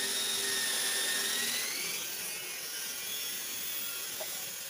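Electric pet hair clipper running with a steady high whine that rises in pitch and fades about two seconds in, leaving a fainter hiss.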